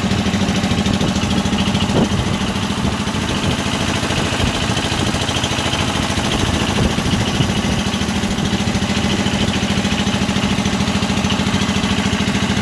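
Engine of a wooden boat running steadily under way, a fast, even chugging that holds the same speed throughout.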